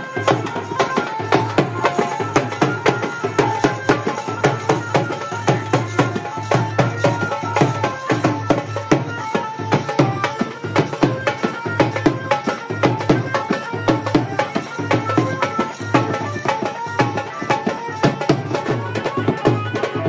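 Live Holi folk music: a barrel-shaped hand drum beaten in a fast, steady rhythm with other percussion, and a melody running over it.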